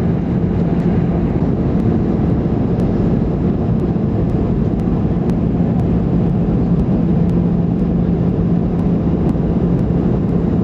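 Boeing 747 cabin noise: the steady roar of engines and rushing air, with a steady low hum underneath.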